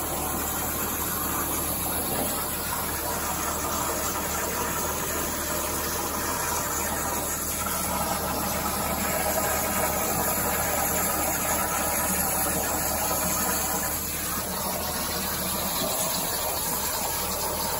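CNC plasma torch cutting 12 mm steel plate at 90 A: the plasma arc's steady hiss, strong in a high-pitched band, without a break.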